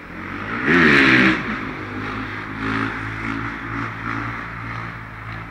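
Electric motor and rotor of a small radio-controlled model run up on the ground: it spools up sharply about a second in, briefly loud, then keeps running with a steady hum that swells a little now and then. The owners suspect its battery is weak.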